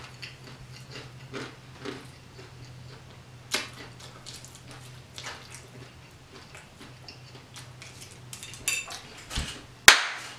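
Spoon scooping cheesy grits from a glass plate: scattered light clicks and scrapes of spoon on plate, with a sharper clack near the end. A steady low hum runs underneath.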